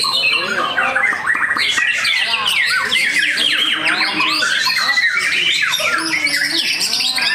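White-rumped shama singing: a dense, fast run of rising and falling whistled notes.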